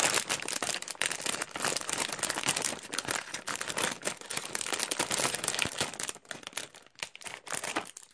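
Clear plastic packaging crinkling as it is handled and cut open with scissors, a dense crackle that thins out near the end.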